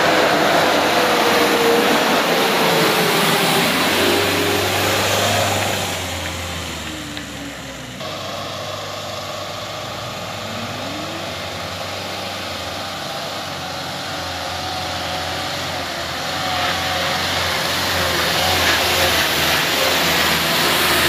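Mitsubishi Fuso Canter light trucks' diesel engines pulling up a steep gravel grade close by. The first is loud as it passes and then fades. A second grows steadily louder from about two-thirds of the way in as it approaches.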